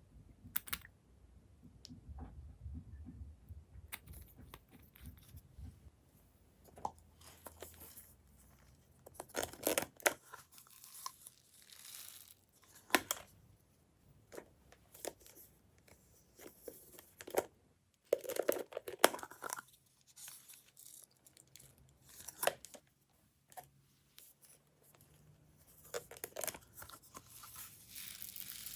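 Glossy slime being stretched, folded and pressed by hand, giving irregular sticky crackling and tearing sounds in short bursts, the loudest around the middle of the stretch.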